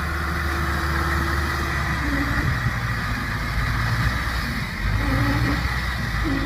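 Engine of a tracked rice carrier running steadily as the carrier, loaded with sacks of rice, crawls along a dirt track.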